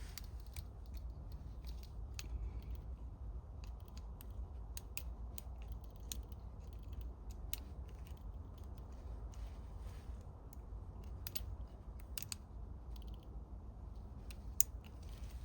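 Lock pick and tension wrench working the pins of an ABUS 83/45 padlock cylinder: small, irregular metallic clicks as pins are lifted and set.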